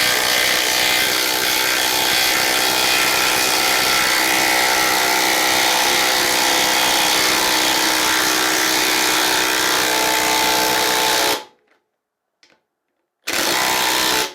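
Parkside Performance PDSSAP 20 Li B2 brushless 20 V impact driver running at full speed for about eleven seconds, hammering a screw into a wooden beam. It stops, then gives one short final burst near the end to seat the screw.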